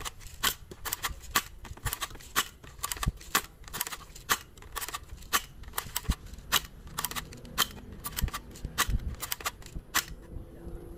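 Toy AK-47 plastic-pellet gun firing shot after shot, a sharp snap two or three times a second at an uneven pace, stopping shortly before the end.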